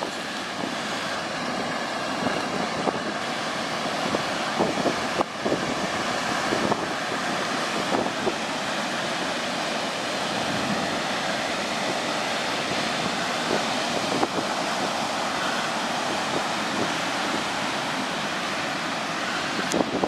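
Ocean surf breaking and washing up the beach, a steady rushing noise, with wind buffeting the microphone now and then.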